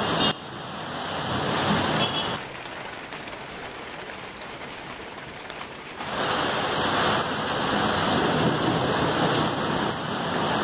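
Heavy rain pouring down, a steady even hiss. About two seconds in it falls to a faint hiss for roughly four seconds, then comes back at full strength.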